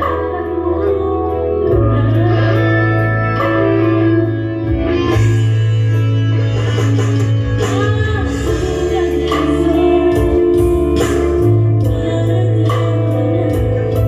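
Live music from an electronic keyboard (orgen) with a singer, over a steady, heavy bass line.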